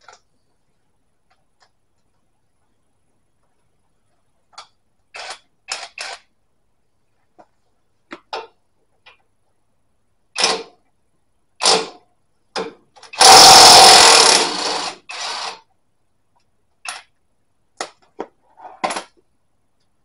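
Cordless impact wrench on a 17 mm socket hammering at a front shock absorber mounting nut to undo it. It gives several short bursts and one long burst of about two seconds a little past the middle.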